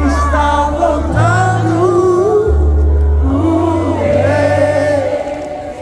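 Live gospel worship music: sung phrases held long over a band, with steady bass notes changing every second or so.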